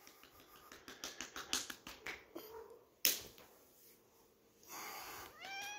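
A hand lightly slapping a hairless Sphynx cat's haunches: a quick run of soft pats about a second in, then one sharper slap around three seconds in. Near the end the cat gives a short meow that rises in pitch.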